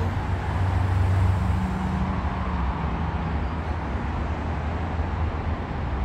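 Steady road traffic noise from passing cars, with a low engine hum strongest in the first second or so.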